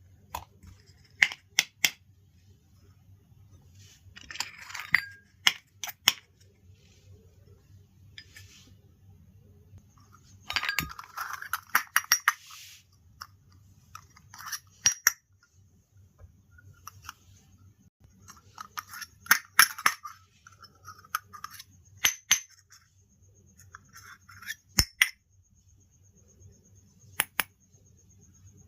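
Small plastic toy kitchen pieces clicking and clinking as they are handled and set down, scattered taps with a few short bursts of rustling in between.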